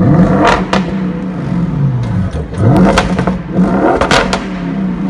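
Audi RS6 Avant performance's twin-turbo V8 being revved hard in short blips while parked, about three rises and falls in pitch. Sharp exhaust cracks come as the revs drop.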